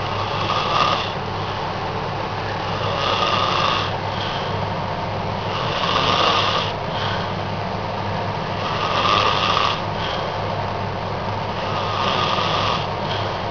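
A man snoring in deep sleep, a snore about every three seconds, five in all, each about a second long, over a steady low hum.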